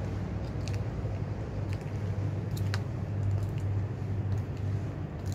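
A steady low hum runs throughout, with a few faint, sharp clicks scattered over it, the clearest about two and a half seconds in.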